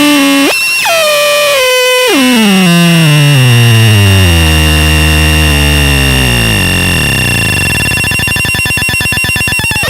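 Handmade drone noise synth of cross-modulated square-wave oscillators sounding a harsh, buzzy stacked tone. It jumps up in pitch about half a second in, then drops and slides down in steps into a deep bass drone. In the second half it breaks into a fast, even pulsing buzz.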